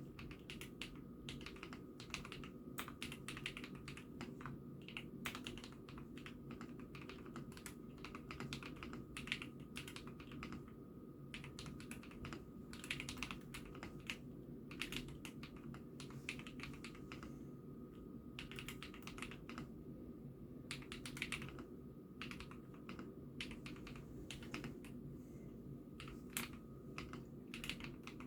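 IKKI68 Aurora mechanical keyboard being typed on continuously, a quick irregular patter of keystrokes, over a steady low hum.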